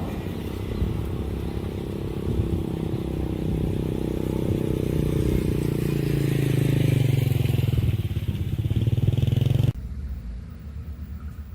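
A vehicle engine running over a steady rumble, its note rising in pitch and growing louder, then cut off abruptly near the end.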